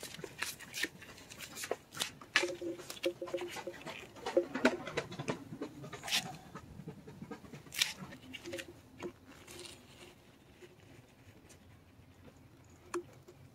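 Needle-nose pliers clicking and scraping on a valve's metal bracket as it is pried and twisted loose from a rubber intake hose, with short squeaks between about two and five seconds in. The handling sounds thin out after about ten seconds, with one sharp click near the end.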